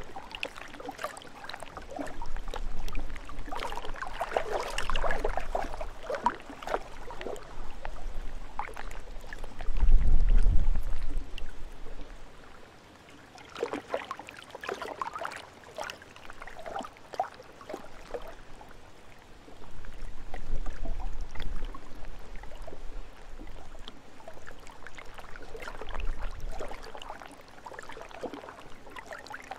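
Small lake waves splashing and lapping in irregular clusters, with gusts of wind rumbling on the microphone, the strongest about ten seconds in.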